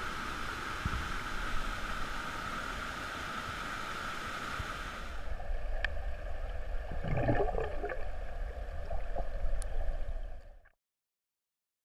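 Water rushing steadily over a rocky cascade. About five seconds in it gives way to the muffled, gurgling sound of a camera underwater, with some bubbling and a few clicks, and then cuts off suddenly near the end.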